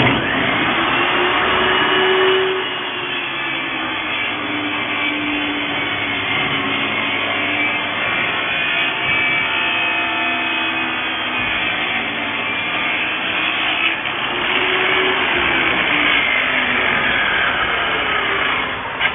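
XCORT XMY01-255 table saw, its 1800 W motor driving a 254 mm blade, ripping a wooden board lengthwise. It comes in suddenly at the start, its pitch sags and recovers as the wood is fed through, and it stops abruptly near the end.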